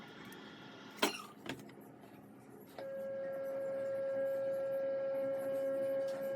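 Top-load automatic washing machine giving two clicks, then a steady hum that starts suddenly about three seconds in and holds one pitch.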